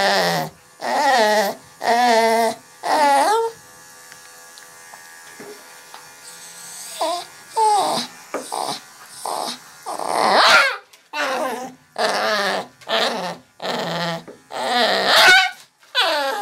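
Toy poodle barking and yelping over and over, about once a second, with a pause of about three seconds a few seconds in, during which an electric grooming clipper hums faintly.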